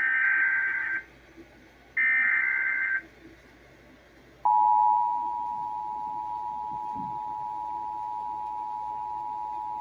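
Emergency Alert System alert opening: two bursts of SAME digital header data, a harsh warbling screech about a second each and a second apart, encoding a severe thunderstorm warning. About four and a half seconds in, the EAS attention signal starts, a steady two-tone beep (853 and 960 Hz), loudest in its first half second.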